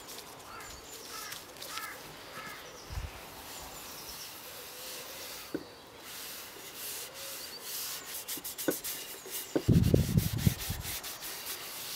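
A cloth rubbing Danish oil into a wooden stool top, wiping back and forth over the wood, with a louder spell of cloth-and-glove rustle and handling about ten seconds in.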